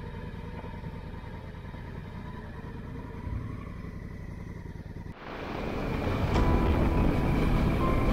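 Motorcycle on the move: a steady engine rumble with wind noise. About five seconds in it cuts suddenly to a louder rushing noise that swells and then holds steady.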